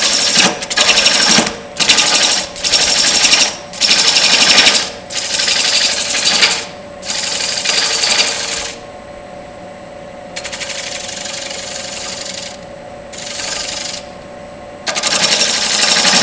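A wooden bowl spinning on a lathe at about 800 RPM while a handheld turning tool cuts across its foot, throwing off shavings. The cuts come as a series of short, rough passes, most under a second and a few longer and quieter near the middle, over a steady whine.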